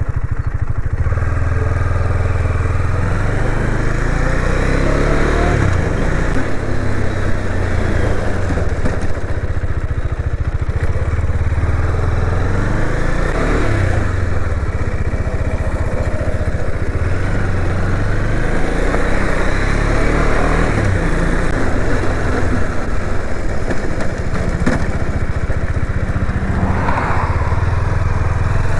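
KTM 250 Duke's single-cylinder engine running while the bike is ridden, its pitch stepping up and down with throttle and gear changes, under steady wind noise on the microphone.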